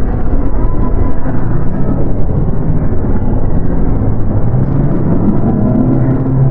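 Dark ambient horror soundscape: a loud, dense low drone with a few held low tones that shift slightly in pitch.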